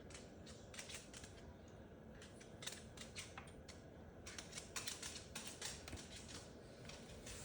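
Moluccan cockatoo making faint, irregular clicks and taps in quick clusters, as it moves about and investigates a plastic toy on a hard surface.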